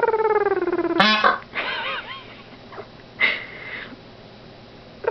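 Dark pied male peacock (Indian peafowl) giving its honking warning call, an alarm at a noise it heard: a long nasal honk falling in pitch stops about a second in, followed by a sharp click and a short rattle, a couple of brief wavering notes, and a short raspy call a little past three seconds.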